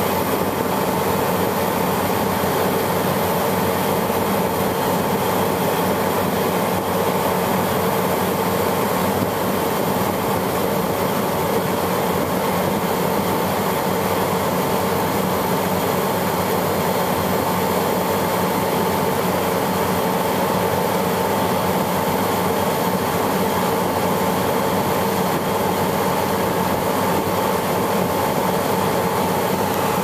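Refrigeration condensing unit running steadily with its 5 hp Copeland compressor pumping down against a shut suction valve, a constant mechanical hum with a fixed tone. The compressor is pulling the low side down poorly, which the owner puts down to bad valves.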